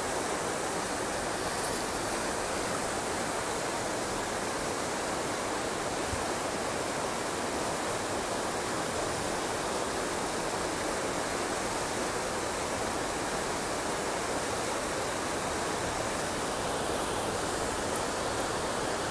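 Muddy river in flood after a storm, rushing and churning over rocks in a steady, unbroken noise of water.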